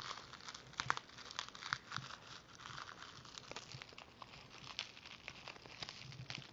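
Packaging crinkling and crackling in irregular, faint bursts as items are dug out of a mailed box and handled.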